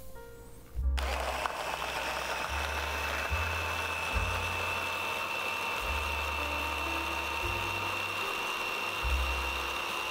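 Electric hand blender with a chopper bowl attachment switched on about a second in, its motor running steadily with a high whine as it grinds walnuts with oil and vinegar into a smooth paste.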